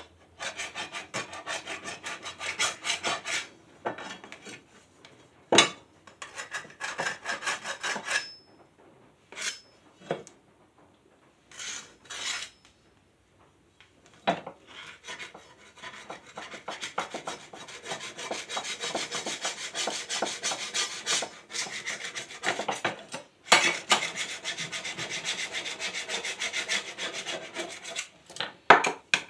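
A scraper rasping along a lawn mower blade in bursts of quick, repeated strokes, knocking off old caked grass. There are a few short pauses, and the longest steady run of scraping comes in the second half.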